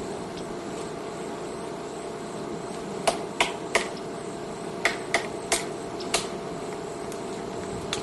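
Woodpecker pecking at wood: seven sharp taps, a group of three about three seconds in and four more about five seconds in, roughly three a second, over steady background noise.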